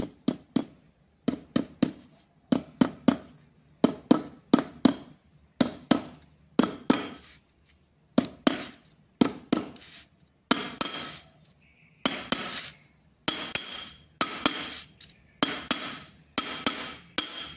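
Hammer tapping a new oil seal into the metal housing of a diesel injection pump timer, in quick groups of two to four light strikes, each with a short metallic ring.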